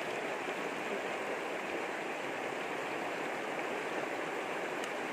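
Shallow rocky river rushing steadily over stones through a stretch of small rapids.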